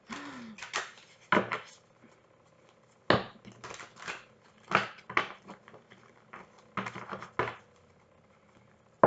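Deck of tarot cards being shuffled by hand: irregular short rustles and slaps of cards, with two pauses of about a second.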